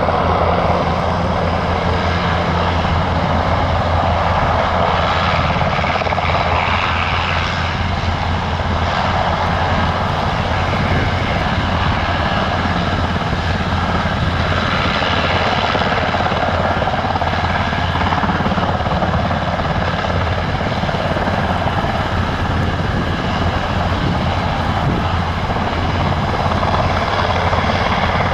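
Eurocopter AS532 Cougar helicopter hovering low, its main rotor beating steadily over the sound of its twin turbine engines, loud and even throughout.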